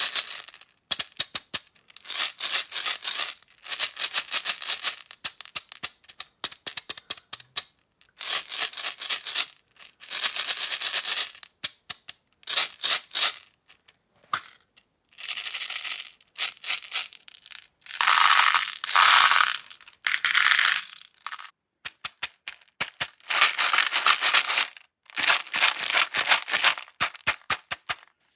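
Plastic beads pouring and sliding across a tray, rattling in repeated bursts of a second or two with short pauses between them.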